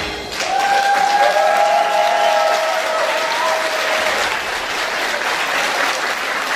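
Audience applauding in a hall at the end of a song, with a long held cheer rising over the clapping in the first few seconds.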